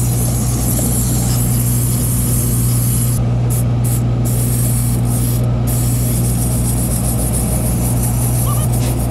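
Canister steam cleaner blasting steam from its wand onto a rubber floor mat: a steady hiss that cuts out briefly a few times around the middle. A strong steady low hum runs underneath.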